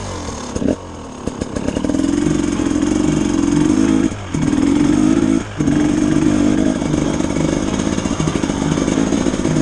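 Enduro dirt-bike engine running hard at high revs, with the throttle dropping off briefly twice near the middle.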